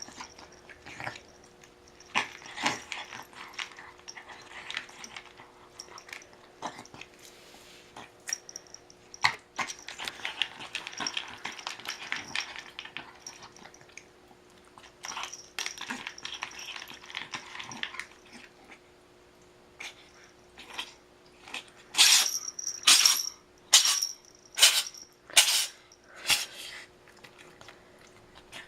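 A pet eating: scattered clicks and crunches of chewing, with a run of about six sharp, loud bursts near the end.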